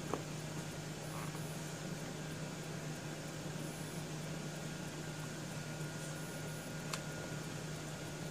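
Steady low hum and hiss of room noise while a stamp is pressed by hand, with a faint click just after the start and another near the end as the stamping platform is handled.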